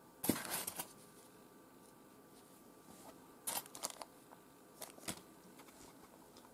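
Handling noise while unpacking: short crinkling rustles and light clicks of a small clear plastic bag and parts being handled, in three brief flurries, the loudest just after the start.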